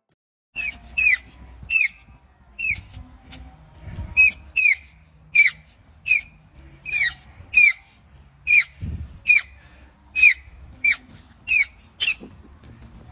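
An animal making a long series of short, high, squeaky calls, about one or two a second at uneven intervals. Each call drops quickly in pitch.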